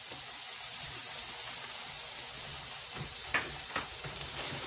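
Burger patties and melted butter sizzling on an electric flat-top griddle, a steady hiss. Two light clicks come a little past three seconds in.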